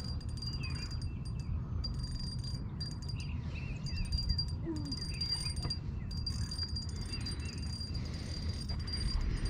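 Birds chirping in short scattered calls over a low, steady rumble, with a faint thin high whine held throughout.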